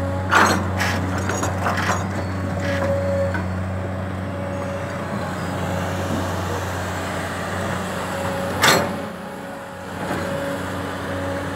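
Kobelco crawler excavator working with its diesel engine running steadily and a higher whine that comes and goes. Rocks and soil clatter into the steel dump truck bed in the first few seconds as the bucket empties, and a single loud knock comes about nine seconds in.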